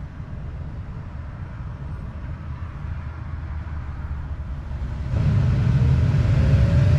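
Tesla Model 3 cabin blower fan running, stepping up to full speed about five seconds in, where it gets louder and a whine rises in pitch as the motor spins up. The fan is drying the freshly foam-cleaned evaporator.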